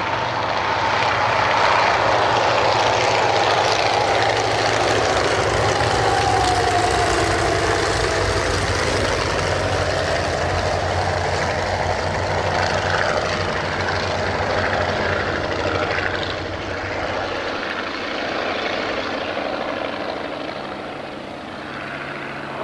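Engines and propellers of a formation of five Fokker Dr.I triplanes flying past low. The sound is loudest in the first few seconds, drops in pitch as they pass, and thins out and fades near the end.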